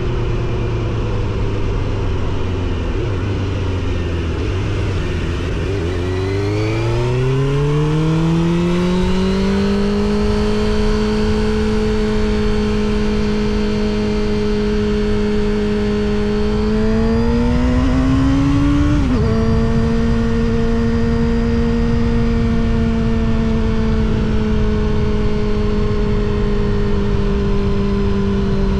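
Suzuki GSX-R750 SRAD's inline-four breathing through a Yoshimura R77 exhaust, under way. The engine note climbs steadily about six seconds in and then holds at cruise. It rises again and drops sharply at an upshift a little past two-thirds of the way through, then runs steady again over a low rush of wind and road.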